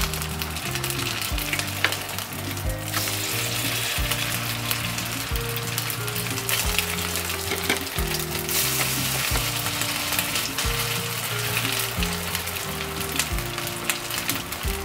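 Potato pancake batter frying in oil in a pan, a steady sizzle that swells louder about three seconds in and again just past the middle.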